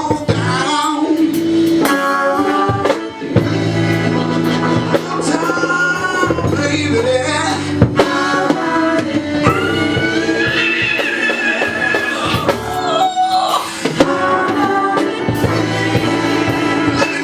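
Live band playing with a lead vocalist singing: bass guitar, drum kit, keyboard and electric guitar behind the voice.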